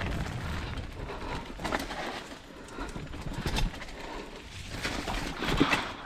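Mountain bike descending a rough dirt trail: tyres on loose ground, and the bike clattering and rattling irregularly over bumps, with a burst of sharper knocks near the end.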